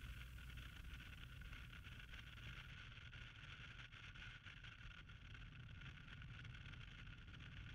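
Near silence: a gap between two music tracks, with only a faint hiss.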